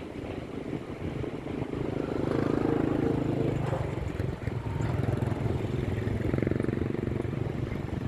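A motor engine droning steadily, growing louder about two seconds in and again in the second half.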